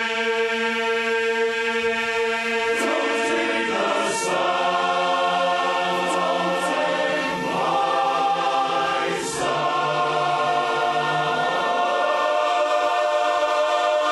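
Men's barbershop chorus singing a cappella in close harmony, holding long chords that shift every few seconds, with a few crisp 's' consonants.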